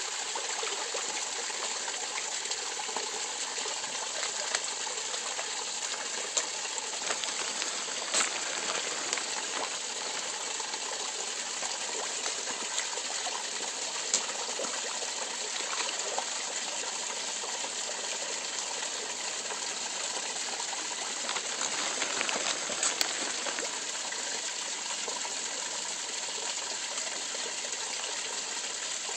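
Steady rush of water in a garden koi pond, with koi splashing and slurping at the surface: small sharp splashes all through, a few louder ones about a third of the way in and again near three quarters.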